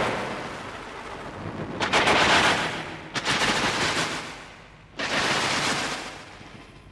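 Electroacoustic studio music: a dense wash of rushing noise fades away, then three sudden bursts of harsh noise, about 2, 3 and 5 seconds in, each swelling in at once and dying away over a second or two.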